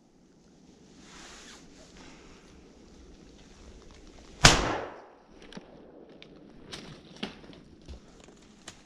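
A single shot from an IZh-27 over-under shotgun about halfway through, its report dying away over about half a second. Soft rustling and a few small clicks and knocks follow.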